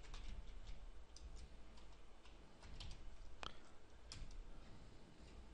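Faint, irregular clicks of computer keyboard keys as a few characters are typed, with one sharper click about three and a half seconds in.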